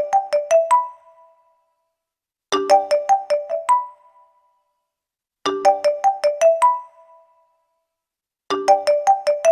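A phone-ringtone melody played on a keyboard instrument: a quick phrase of about seven notes ending on a held higher note, repeated about every three seconds, four times.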